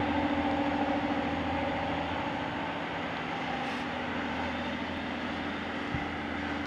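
Class 142 Pacer diesel multiple unit idling at a platform: a steady drone from its underfloor diesel engines with a constant hum.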